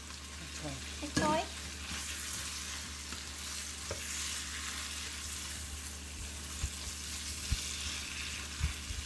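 Bok choy, pork and egg sizzling in a hot oiled frying pan while a wooden spatula stirs and turns them, with a few light knocks of the spatula against the pan. The sizzle grows louder a couple of seconds in, as the freshly added wet greens heat in the oil.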